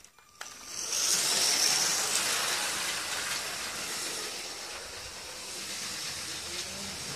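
Remote-controlled Lego train running along plastic track, its electric motor and wheels making a steady noise that starts about half a second in.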